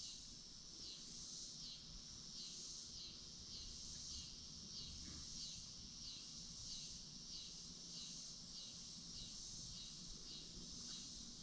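Evening insect chorus: a steady high buzzing with a falling pulse that repeats about one and a half times a second, faint throughout.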